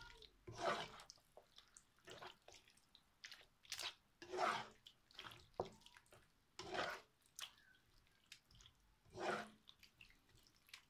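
Spoon stirring thick stew in a nonstick frying pan: short wet squelching scrapes, one every second or two.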